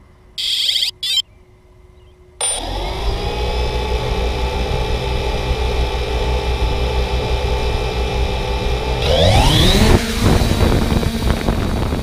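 Quadcopter drone starting up: two short electronic beeps, then its motors spin up and run steadily at low throttle on the ground. About nine seconds in, the whine sweeps up in pitch and grows louder as it throttles up to take off.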